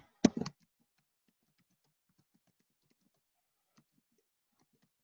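Faint keystrokes on a computer keyboard as a line of text is typed, a scattered run of light clicks with a couple of louder ones near the start.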